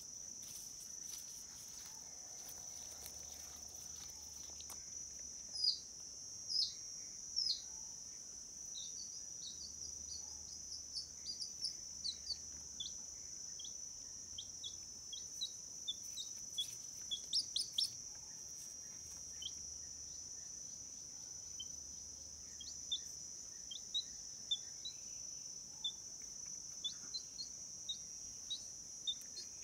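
A steady high insect drone, like crickets, under many short, high chirps from a small bird. Each chirp slides downward, and the loudest three come about six to seven and a half seconds in.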